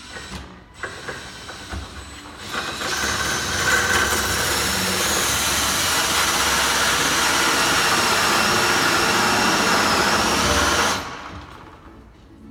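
Power drill boring into a door with a Milwaukee hole saw, running steadily with a high motor whine for about eight seconds and then stopping. A few knocks come before the drill starts.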